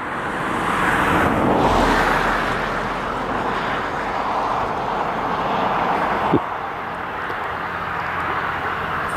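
A vehicle passing close by on the road: a rushing tyre-and-engine noise swells to a peak about two seconds in, then eases to a steady lower rush. There is a short click about six seconds in.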